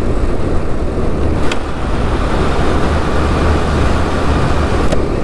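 Steady road noise of a motorcycle riding through a road tunnel: a deep rumble of engine, wind and tyres with traffic noise, and two faint ticks, one about a second and a half in and one near the end.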